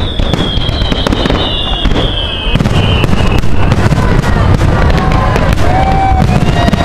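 Aerial fireworks shells bursting and crackling in quick succession, with a long whistle falling in pitch over the first couple of seconds. The bangs grow louder and denser about two and a half seconds in.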